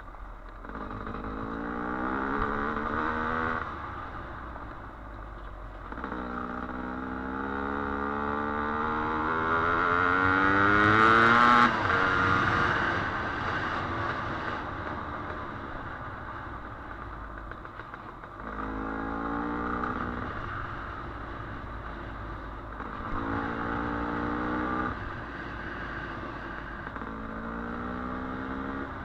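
Trail dirt bike engine accelerating in repeated pulls, its pitch rising with each. The longest pull climbs for about six seconds to the loudest point near the middle, then drops off. Shorter pulls follow, with the engine easing back between them.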